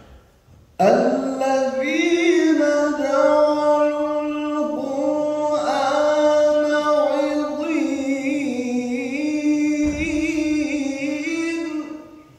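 Male Quran reciter chanting in melodic tajweed style: one long held phrase with ornamented trills and turns that starts about a second in and fades just before the end.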